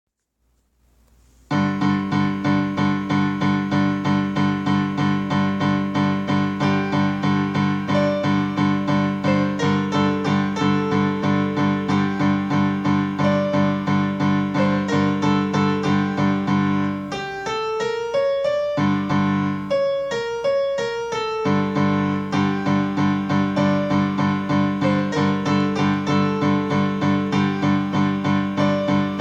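Electric piano or keyboard music: a steady repeating pattern of notes, about three a second, over a held low chord, with a brief break near the middle where the low notes drop out.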